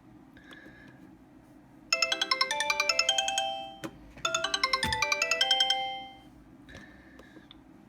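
Sony Ericsson W902 mobile phone playing a short ringtone: a quick run of synthesized melody notes, heard twice with a brief gap, each run fading out.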